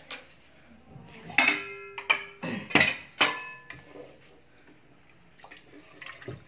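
Stainless steel kitchenware clinking as a spice box and spoon are handled and set down: four sharp metallic strikes, each ringing briefly, between about one and three and a half seconds in. Faint rustling follows as rice and dal are mixed by hand in the pressure cooker.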